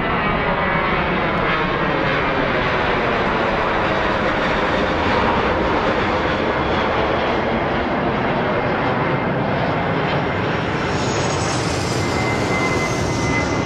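A steady, loud roar like an aircraft engine, sounded by the piece's electronics, with slow sweeping glides running through it as in a plane passing overhead. Near the end a thin, high steady tone enters above it.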